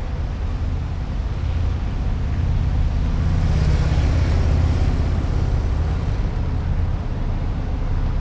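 A line of vehicles, police cars among them, driving past one after another: engine and tyre noise that swells as a police SUV passes close, about four seconds in, then eases off.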